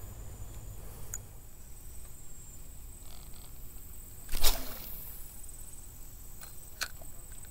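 A cast with a spinning rod and Shimano Sahara 2500 spinning reel: a single loud swish about halfway through, then a sharp click near the end.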